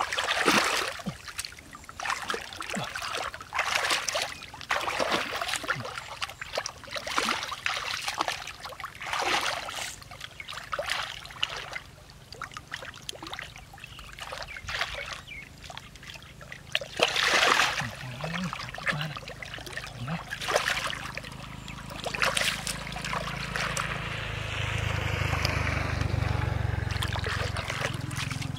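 Muddy water splashing and sloshing in irregular bursts as hands scoop and grope through a shallow, mud-bottomed pool. A steadier low rumble and hiss join near the end.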